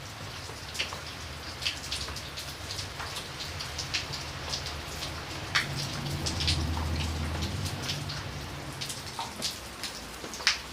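Rain falling, with separate drops striking sharply at irregular intervals over a steady hiss. A low rumble swells about halfway through and then fades.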